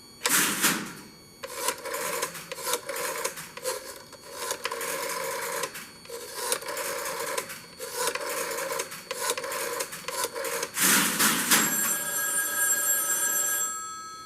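A call being dialed through an electromechanical Number 5 Crossbar telephone switch: rapid mechanical clicking and relay clatter in runs separated by short pauses as the digits go in from a rotary dial. Near the end an electromechanical telephone bell rings for about two seconds as the call goes through.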